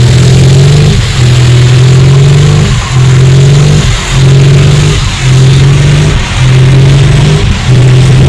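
Pickup truck's V8 engine held at high revs during a burnout, with a brief dip in revs about once a second, over the rushing noise of the spinning, smoking rear tyres.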